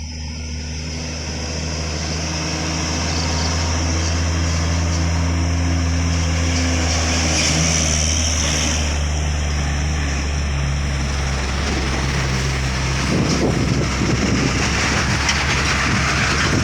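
Heavy truck engine running steadily under load, growing louder over the first few seconds. About thirteen seconds in, a rough rattling rumble joins it.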